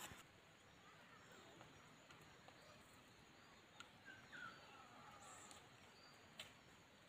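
Near silence: faint outdoor ambience with a few soft bird chirps about four seconds in and a couple of faint clicks.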